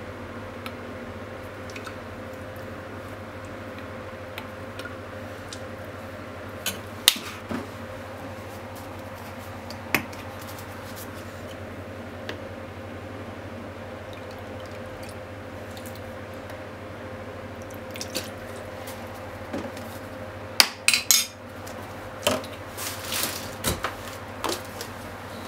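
Small metal measuring cup clinking against a bottle and the frying pan as seasonings are measured and poured in, with a few sharp clinks at first and a quicker run of clinks and taps near the end, over a steady background hum.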